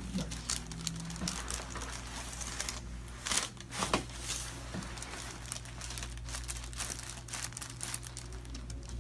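Crinkling and rustling handling noise with many scattered sharp clicks, two of them louder, about three and a half and four seconds in, over a steady low hum.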